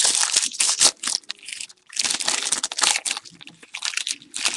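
Plastic wrapping crinkling and tearing in bursts of crackles as a sealed trading-card box is opened, with a brief pause about two seconds in.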